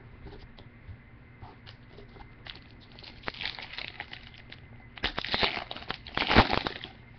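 Foil trading-card pack wrapper being torn open and crinkled, with scattered rustles and clicks of cards being handled; the loudest crinkling comes about five to six and a half seconds in.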